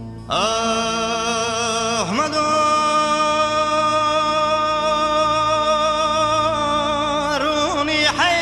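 A male voice sings a Kurdish folk song in one long held cry with vibrato, entering just after the start. It dips in pitch about two seconds in, holds a long note again, and breaks into quick ornamental turns near the end, over a steady low drone from the accompaniment.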